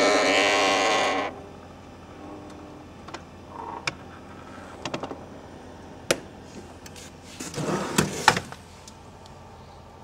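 A noisy Siemens fridge makes a loud, buzzing whir that cuts off abruptly about a second in. After that there are scattered light clicks and knocks, with a short clatter and rustle about eight seconds in.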